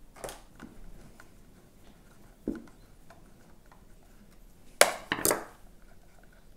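Hands and tools working loose a motorcycle turn-signal indicator: scattered light clicks and a short knock about two and a half seconds in, then two sharp knocks close together a little before five seconds in.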